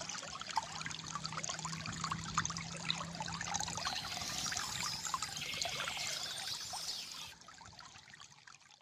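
Shallow stream of water gurgling and trickling steadily, fading down near the end.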